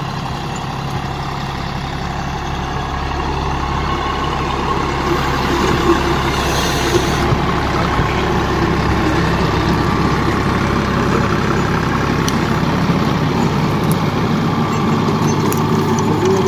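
John Deere 5050D tractor's three-cylinder diesel engine running steadily under load while it pulls a rotavator through the soil. The sound grows louder over the first several seconds as the tractor draws near, then holds steady.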